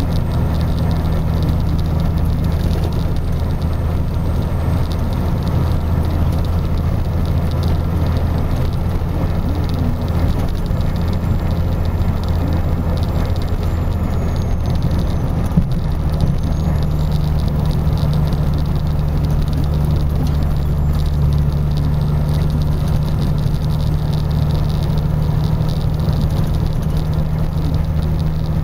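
Car driving steadily, heard from inside the cabin: a constant low engine hum with tyre and road rumble from a snowy road. A single short knock sounds a little past halfway, and the hum shifts slightly in pitch soon after.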